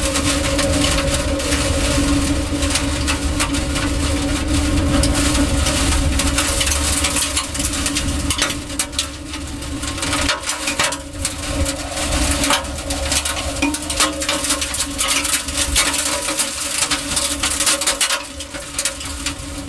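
Tornado winds buffeting a ground-level probe camera's microphone, a dense rushing noise with a steady low hum under it. From about the middle on, the wind comes in gusts and many small sharp hits of flying dirt and debris strike the probe.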